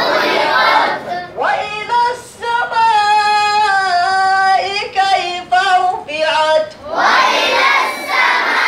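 Boys' voices chanting Quranic recitation in unison. About a second in, a single boy's voice carries one long melodic phrase with held, wavering notes, and the whole group joins in again near the end.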